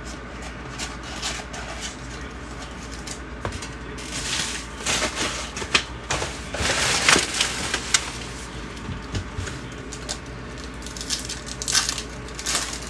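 Plastic wrapping and cardboard packaging of a box of baseball trading cards being torn open and crinkled, in irregular crackling bursts heaviest in the middle and again near the end.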